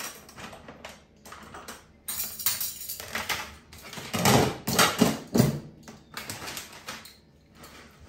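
Plastic dishware clattering and knocking: dishes are set into a plastic dish rack and its plastic lid is shut, with the loudest clatter about four to five seconds in.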